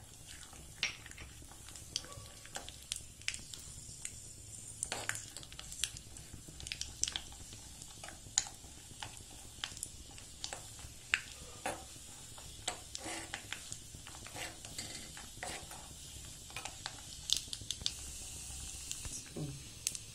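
Cashews frying in hot ghee in a small pan: a steady sizzle with many irregular sharp crackles and pops. A spoon clicks and taps against the pan as the cashews are stirred.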